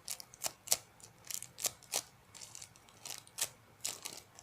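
Irregular crinkling and crackling of a homemade squishy being squeezed and handled, a dozen or so sharp crackles.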